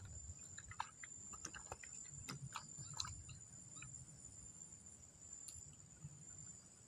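Faint insect chirring: a steady high-pitched drone, with scattered small clicks and short chirps over the first few seconds.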